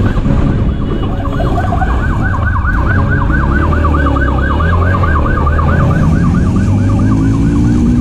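Police motorcycle siren in a fast yelp, about five sweeps a second, over the motorcycle's engine running hard during a pursuit. The engine's pitch rises near the end.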